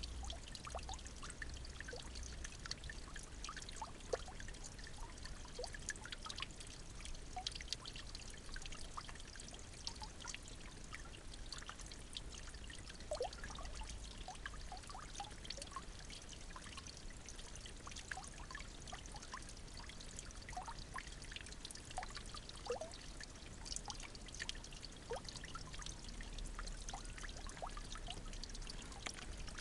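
Water trickling steadily, with many small scattered drips and splashes throughout.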